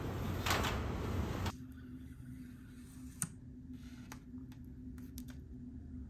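Aluminium extension ladder being handled, with a brief rattle, over steady outdoor rumble and hiss. About a second and a half in this gives way to a quiet room with a faint steady hum and a few light, sharp clicks.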